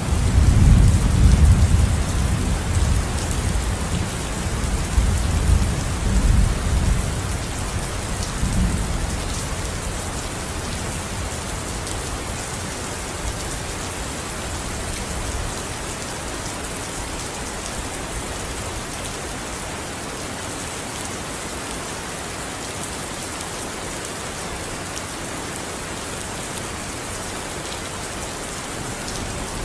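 Steady rain hissing throughout, with a roll of thunder at the start that rumbles for about nine seconds, swelling a few times before fading away and leaving the rain alone.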